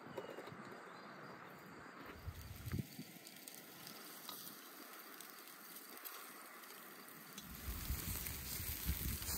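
Meat and vegetable skewers grilling over hot charcoal: a faint, steady sizzling hiss with small scattered crackles. A low rumble comes in briefly about two seconds in and again near the end.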